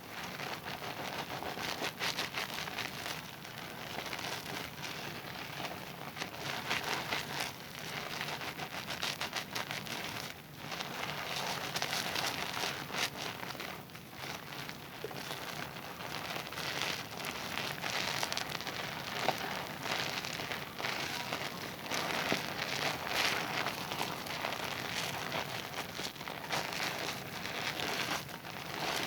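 Wet Zest bar soap being lathered: a continuous wet rubbing with dense fine crackling from the foam, swelling and easing as the strokes go on.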